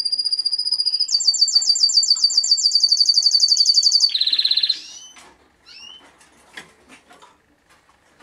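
Timbrado Español canary cock singing: a held high whistled note, then a fast, even trill of rapidly repeated notes for about three seconds, ending in a brief lower, rougher trill. The song stops about five seconds in, leaving only a few light ticks and a short call.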